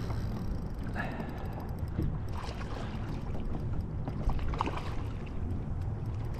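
Wind buffeting the microphone over water splashing against a small boat's hull, with a few faint clicks.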